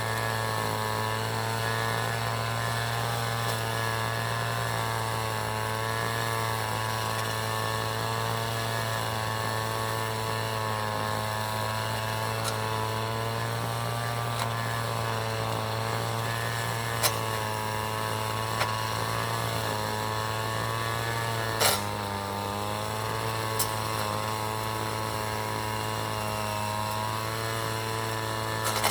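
City street traffic: a nearby vehicle engine idling with a steady low hum. A few sharp clicks cut through it, the loudest about two-thirds of the way through.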